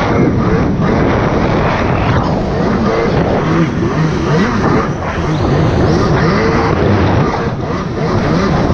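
Jet ski engine running under way, its pitch wavering up and down over a loud, steady rush of noise.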